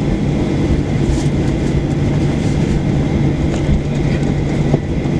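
Cabin noise inside a Boeing 737-800 taxiing just after landing: a loud, steady rumble of the CFM56-7B engines at idle and the wheels rolling on the taxiway, with a steady low hum.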